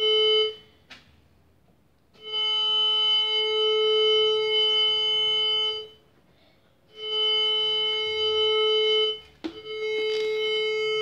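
MD-3010II metal detector sounding its steady target tone, a single unchanging mid-pitched note, in four separate stretches: a short one at the start, then three longer ones of two to four seconds, signalling metal under the search coil.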